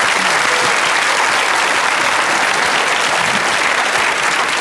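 Studio audience applauding: loud, steady clapping.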